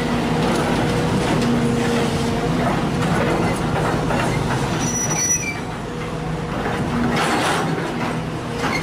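Sumitomo SH210 hydraulic excavator's diesel engine running under load with a steady drone and a whine from the hydraulics as the boom swings back from the truck and lowers the bucket. A brief high squeal comes about halfway through, and a rush of rougher noise comes near the end.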